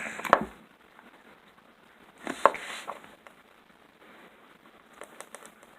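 Slime being squished and pressed into a container by hand: sticky crackling and clicking, with a louder burst about two and a half seconds in and a few small clicks near the end.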